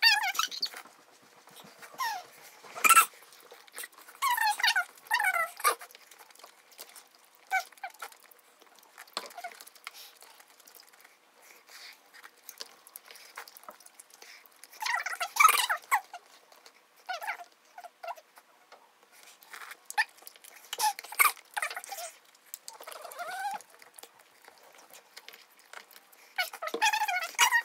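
Close-up eating sounds in scattered bursts: spicy instant hotpot noodles slurped with short squeaky sucking glides, with chewing and sharp clicks of chopsticks and a spoon against the bowls.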